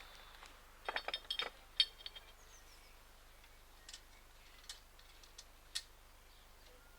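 Small metal parts of a roller reefing kit clinking and clicking together as they are handled. There is a quick run of ringing clinks about a second in, a sharp click just after, then a few scattered ticks.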